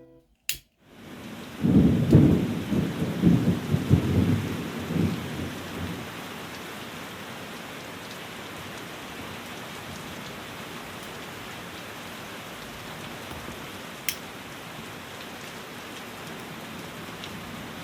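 Steady rain falling, with a low rolling rumble of thunder in the first few seconds that dies away and leaves the even hiss of the rain.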